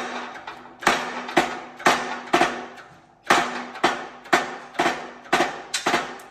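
Hammer blows on steel at a hydraulic shop press: about eleven sharp, ringing metal strikes, roughly two a second, with a short break about halfway through.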